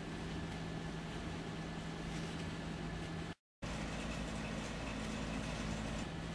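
Steady low mechanical hum over a background hiss, like an idling engine or machinery running nearby. It drops out to complete silence for a split second about halfway through, then resumes with a second low hum tone joining in.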